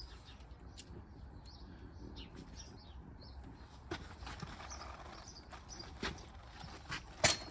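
Birds chirping faintly, with a few sharp knocks: softer ones around four and six seconds in and a loud one near the end.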